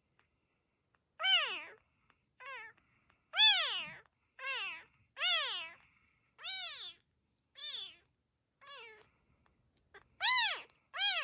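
A very young calico kitten mewing repeatedly: about ten high-pitched cries, roughly one a second, each rising then falling in pitch.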